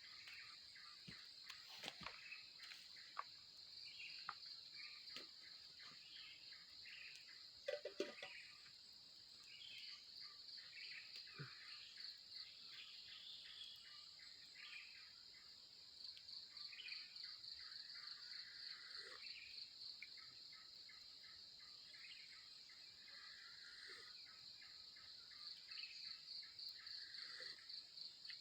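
Insects chirping: a steady, pulsing high trill typical of crickets, with scattered short chirps over it and a few faint knocks, the loudest about eight seconds in.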